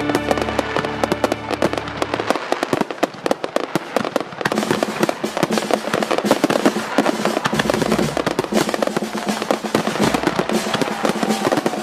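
Fireworks bursting and crackling in rapid, dense volleys, heard together with music whose bass drops out about two seconds in and returns near eight seconds.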